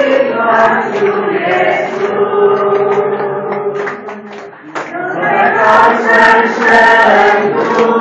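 A group of men and women singing a Chinese Christian hymn together in Mandarin, with hand-clapping. The singing dips into a short break about four seconds in, then resumes at full strength.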